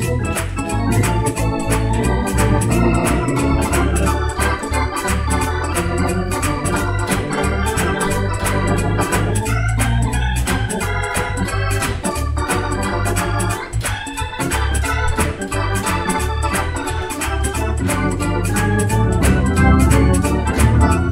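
Viscount KeyB two-manual drawbar organ, a Hammond-style clone, playing a hymn tune in full chords over a strong bass line with an even rhythm.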